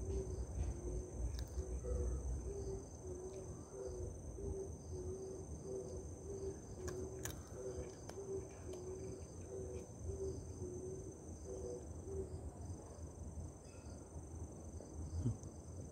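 Crickets chirring in a steady, high, unbroken drone. Under it a low note repeats about twice a second and stops about twelve seconds in, and there are a few faint clicks.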